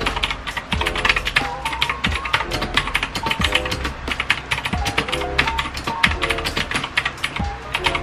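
Fast, continuous typing on a Magegee MK1 mechanical keyboard with clicky blue switches: a dense stream of sharp key clicks. Background music plays underneath.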